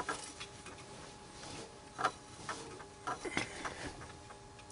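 A few light clicks and knocks from hands handling things close by: one at the start, one about two seconds in and a couple around three seconds in, over a faint steady hum.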